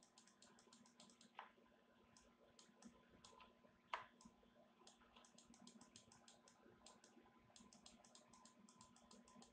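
Faint, irregular clicking of computer mouse buttons and keyboard keys, with two louder clicks about a second and a half and four seconds in.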